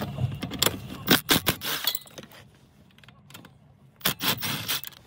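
Uneven metal-on-metal clinks and rattles from a socket and extension working the steering column's 12 mm mounting bolts. There is a cluster of them in the first two seconds and a few more about four seconds in.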